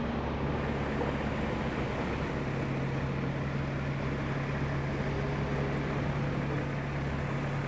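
Heavy road-work truck's engine running steadily as the truck creeps along, a constant low drone with an even hum.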